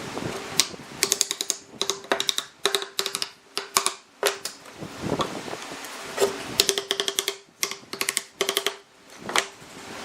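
Quick runs of sharp taps from tool work on wood, several strikes close together in each run with short pauses between.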